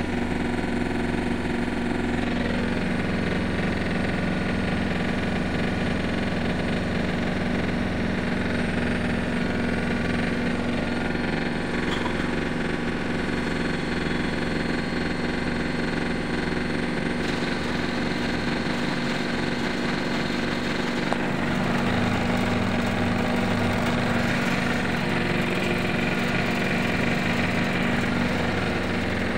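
Electrolux front-loading washing machine running its spin cycle, set for 1000 rpm: a steady motor hum and drum rumble at constant speed, a little louder from about two-thirds of the way through.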